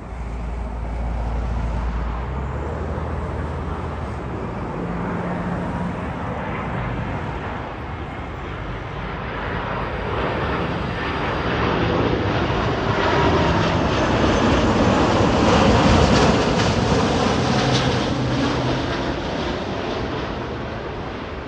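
Airbus A330-243 on final approach with landing gear down, its two Rolls-Royce Trent 772B turbofan engines at approach power. The rushing engine noise grows as the airliner nears, is loudest about three-quarters of the way through as it passes close by, then fades.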